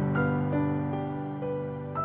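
Soft background music: a slow melody of single notes, a new one about every half second, over held low notes.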